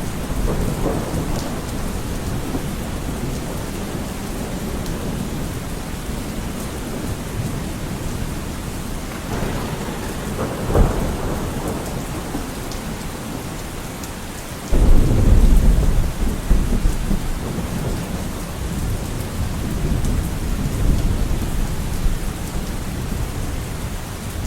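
Steady rain falling, with thunder: a short sharp crack about eleven seconds in, then a loud low rumble that breaks in suddenly about fifteen seconds in and dies away over several seconds.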